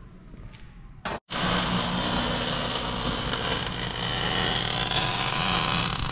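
MIG welding on steel: the arc crackling and sizzling steadily, with a low hum underneath. It starts abruptly about a second in, after a moment of quieter shop noise.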